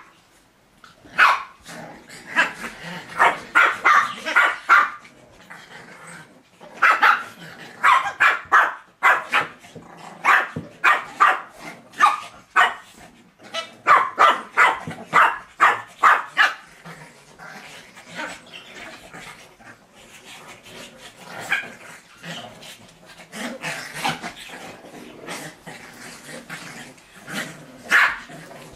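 Shih Tzus barking in play, in several bursts of quick, sharp barks. A quieter stretch follows, with only an occasional single bark.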